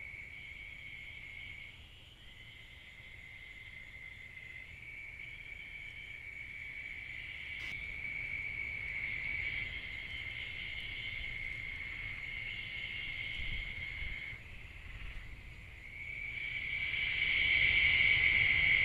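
Night insect chorus: a continuous, steady high-pitched trill that grows louder over the last few seconds.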